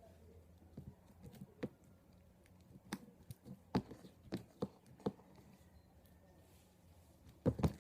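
Sticky slime being mixed with air dry clay: scattered short, faint clicks and snaps, about a dozen at irregular intervals.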